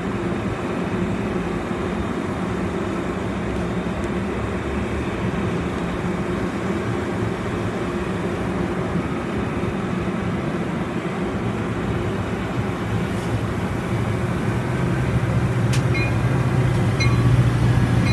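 Amtrak Pacific Surfliner passenger train close by, running with a steady low diesel rumble. The low hum swells louder for the last few seconds, and a few short, faint high beeps sound near the end.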